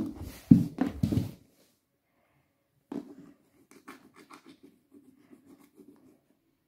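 A few dull thumps in the first second and a half, then a run of light scratching and tapping, several ticks a second, from a thin plastic stick worked against a wooden floor.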